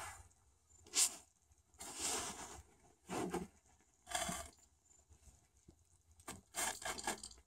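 Rustling and scraping of hands setting up a wooden line holder at a snowy ice-fishing hole: a string of short scuffs about a second apart, with a quick cluster near the end.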